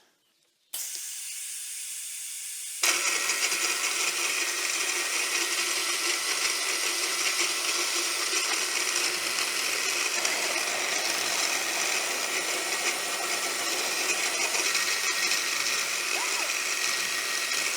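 Milling machine with an 8 mm cutter: a steady, quieter running sound starts about a second in, then at about three seconds it turns into a louder, steady cutting noise as the cutter cuts a groove across the steel bar.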